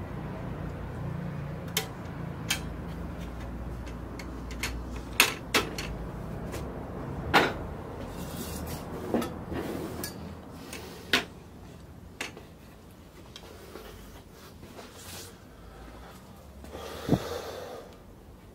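Plastic clicks and knocks from a Ricoh IM C-series fuser unit being reassembled by hand, its parts and cover pressed into place. The clicks come irregularly, about a dozen of them, the loudest about seven seconds in and another near the end.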